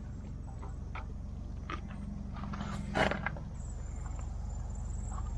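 Fiat 55-66 tractor's three-cylinder diesel engine idling steadily, with a few light clicks and a louder metallic clatter about three seconds in.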